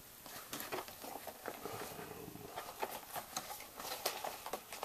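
Light, irregular rustling and small clicks as calculator data cables and their packaging are handled and set down.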